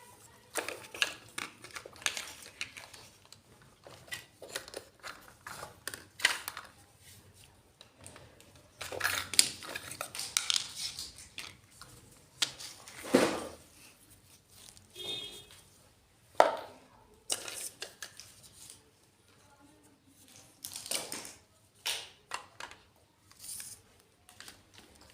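Miniature toy kitchen pieces being handled and unpacked: irregular taps, clicks and clinks of small dishes and utensils.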